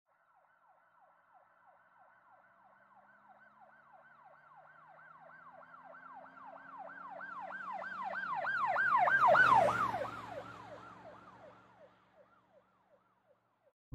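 Emergency vehicle siren in a fast yelp, about three sweeps a second. It grows louder over several seconds, peaks with a rush of road noise and engine hum as the vehicle passes about nine seconds in, then fades away.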